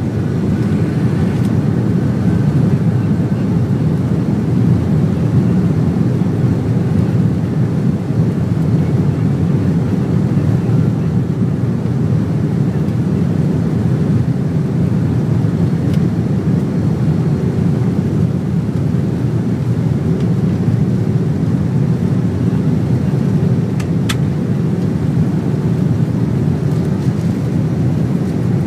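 Jet airliner cabin noise as the aircraft rolls on the ground: a steady low rumble of the engines at low power and the wheels, not building up. A single sharp click about three-quarters of the way through.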